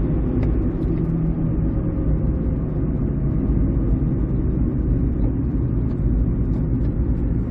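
Inside the cabin of a 2006 Ford Escape Hybrid slowing under braking: road noise with a steady humming from the front end that slows down as the car slows. The owner suspects a bad wheel bearing.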